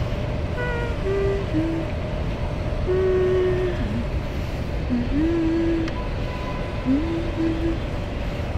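A steady low rumble with a voice humming a slow line of held notes, about one note a second, several of them sliding up into pitch.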